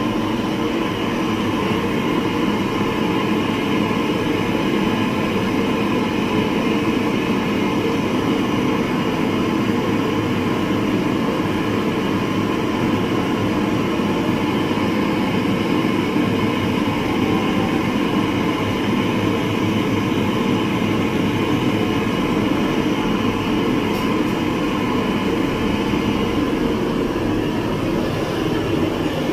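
A steady, loud mechanical running noise with a constant hum.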